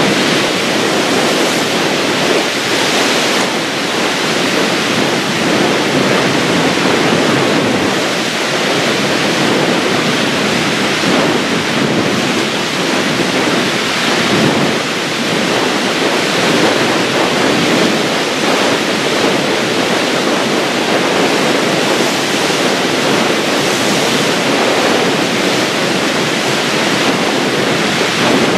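Wind-driven river waves splashing against a stone-armoured shoreline in strong wind: a loud, steady rushing hiss of water and wind.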